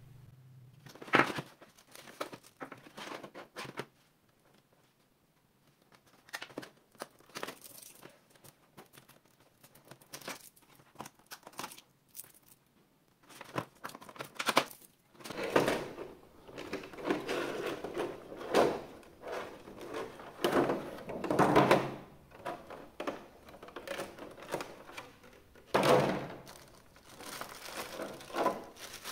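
Packaging being handled and unwrapped: crinkling and tearing with occasional knocks. There is a sharp knock about a second in, and the rustling grows busier about halfway through.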